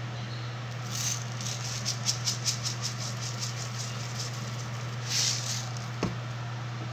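Sea salt rattling in its plastic tub and poured into an empty stainless steel pot: a quick run of ticks, a short hiss of falling grains, then a knock near the end. A steady low hum runs underneath.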